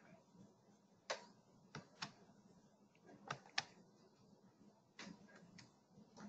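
Faint, scattered computer clicks, about seven spread unevenly over six seconds, as the presentation slides are clicked forward and back.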